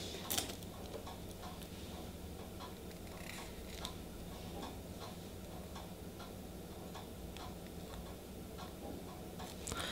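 Faint, scattered light clicks and taps from handling nail stamping tools, the stamper and plate, over a low steady room hum.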